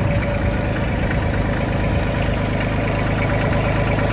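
2008 Mahindra 2615 HST compact tractor's diesel engine idling steadily.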